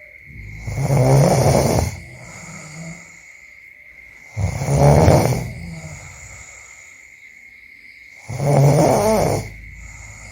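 A person snoring: three loud snores about four seconds apart, with much quieter breathing between them.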